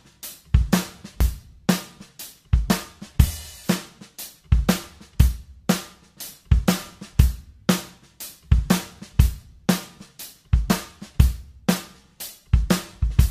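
Background music: a drum kit playing a steady beat, with bass drum, snare and cymbal hits.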